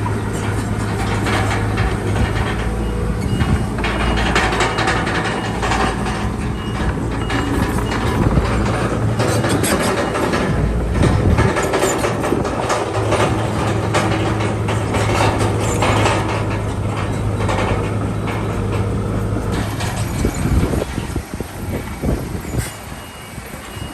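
Crawler bulldozer's diesel engine running under load, with a continuous metallic clatter from its steel tracks; the sound eases off about twenty seconds in.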